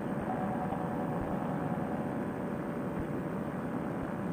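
Fresh Breeze Monster paramotor trike's two-stroke engine and propeller running steadily at cruise power in level flight, mixed with wind rush.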